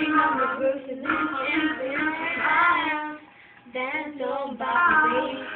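Young female voices singing a slow ballad unaccompanied by instruments of their own, with a short break in the singing about three seconds in.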